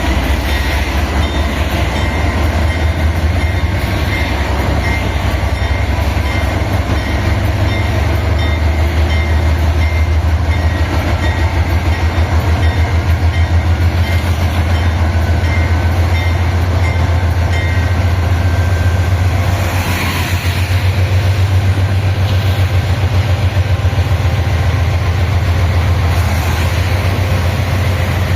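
Freight train running: a loud, steady low drone with rapid pulsing, and thin high whining tones that fade out about two-thirds of the way through.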